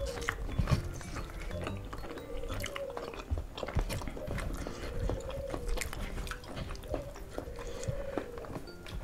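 Two people chewing and biting fried duck and rice eaten by hand, with many short, sharp mouth clicks.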